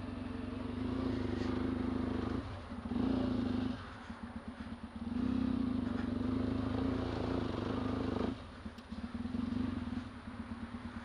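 A 1991 Yamaha XTZ 750 Super Ténéré's parallel-twin engine at low speed off-road, opened up in several bursts of throttle, dropping between them to a quieter, evenly pulsing low rev.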